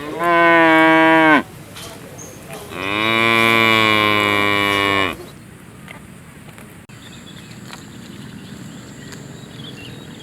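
A cow mooing twice: a short moo that drops in pitch as it ends, then about a second later a longer moo that rises at its start and holds steady.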